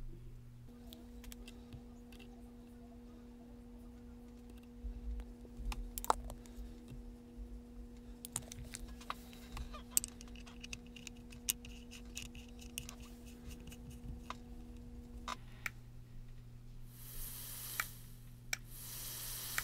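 Scattered small clicks and taps of handling the box mod and seating its metal fill cap, then near the end two short hissing bursts as the freshly wicked dual coils on the open RDTA deck are fired and the e-liquid sizzles off them.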